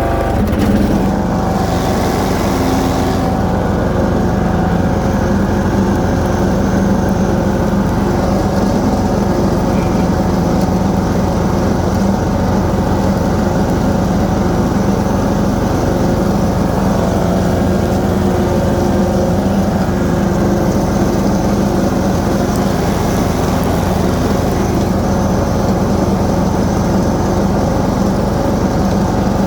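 Toro TimeCutter 16-42Z zero-turn mower's 16-horsepower engine running steadily with the 42-inch deck's blades engaged, cutting through taller grass.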